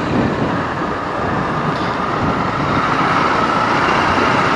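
Riding noise from a moving Bajaj Pulsar NS160 motorcycle among city traffic: engine, wind and surrounding vehicles blend into a steady rush that grows slightly louder toward the end.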